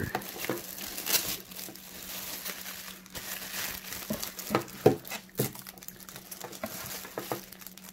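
A clear plastic bag crinkling and rustling as it is pulled off a headset, with irregular crackles and a few sharper ones about halfway through.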